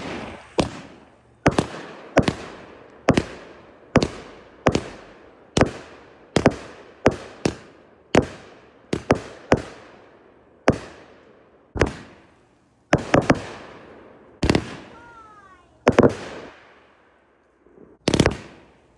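A multi-shot consumer firework cake firing a rapid series of aerial shells: sharp bangs about once a second, each with a short echoing tail. Some shots come in quick pairs or threes.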